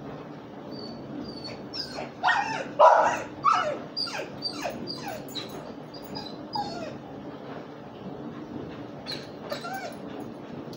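A dog whining and yelping: a run of short high cries, each falling in pitch, about two a second, loudest about three seconds in, fading out and coming back for two more cries near the end.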